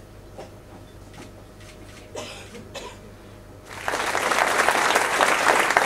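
Audience applause that starts a little past halfway and keeps going, dense and steady, after a few seconds of faint scattered knocks.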